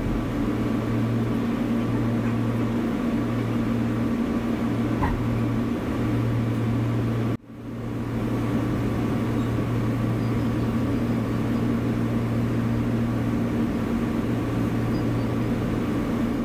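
Steady cabin noise of a 413-series electric train, a constant low drone with a few steady hum tones over the rumble. The sound briefly cuts out about seven seconds in.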